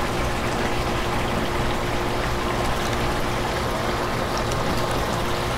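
Steady rushing background noise with a low steady hum underneath, even in level throughout, with no distinct knocks or clinks standing out.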